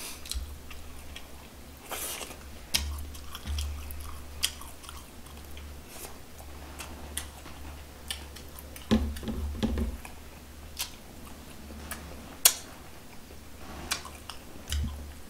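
Close-miked chewing of charcoal-grilled bulgogi: irregular wet mouth clicks, with one sharper click about twelve seconds in. A steady low hum runs underneath.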